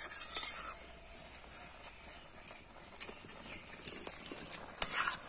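Metal spatula stirring wet greens in a metal pot over a faint sizzling hiss, with soft scrapes and a few clicks against the pot. The scraping is busiest at the start and again, louder, near the end.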